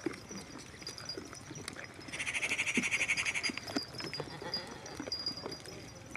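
A goat bleating once, a quavering call of about a second and a half that starts about two seconds in, with faint scattered clicks around it.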